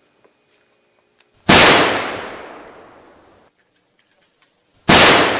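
Two loud gunshot-like bangs about three and a half seconds apart, each trailing off over about two seconds: dubbed-in gunfire sound effects for the Nerf blaster's shots.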